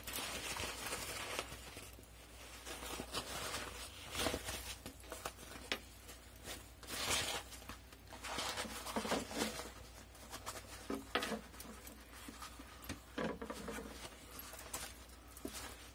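Fabric rustling and swishing in irregular bursts as a small hand-sewn cloth bag is turned right side out and smoothed by hand, with a few light taps.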